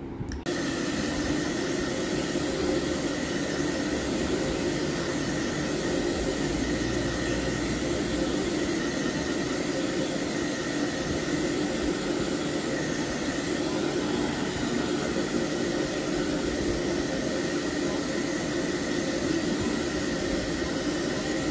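Handheld hair dryer running steadily, a constant rush of air with a steady hum in it, blowing into a plastic laundry basket to dry a cat inside.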